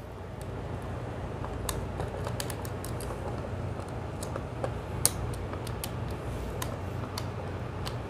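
Small clicks and scrapes of a plastic two-way light switch being handled and a wire being screwed into its terminal with a small screwdriver, the sharpest click about five seconds in, over a steady low hum.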